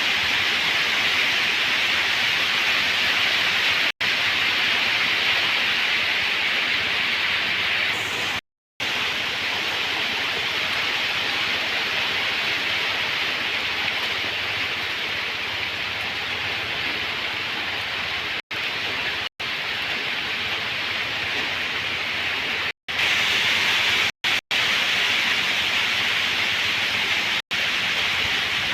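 Steady rain falling, an even hiss, cut to silence for a moment several times along the way.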